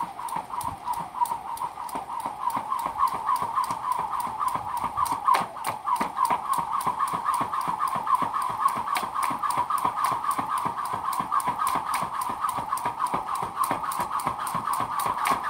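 Jump rope turning steadily, the rope slapping the ground in a quick, even rhythm, with a high squeak pulsing in time with each turn.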